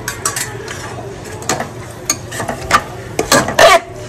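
Metal spoon clinking and scraping against the inside of a pressure cooker while yogurt is stirred into fried masala: scattered clicks, then a run of loud scrapes about three seconds in.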